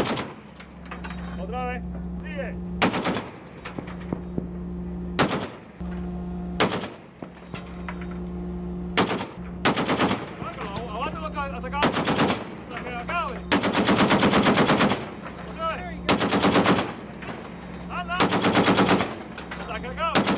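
Browning M2 .50 caliber heavy machine gun firing: single shots about every two seconds at first, then rapid bursts, the longest about a second and a half near the middle. A steady low hum runs underneath.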